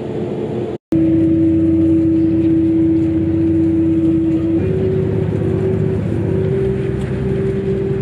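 Passenger train running, a loud steady drone from its engine or traction motors heard inside the carriage, stepping up to a higher pitch about halfway through.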